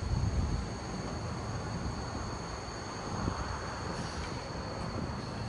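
Steady outdoor background noise: a low rumble of vehicle traffic with wind buffeting the microphone, and a faint high-pitched steady whine.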